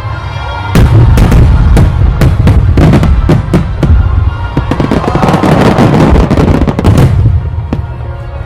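Fireworks going off in quick succession, a dense run of sharp bangs and crackles starting about a second in and easing off about two seconds before the end, over background music.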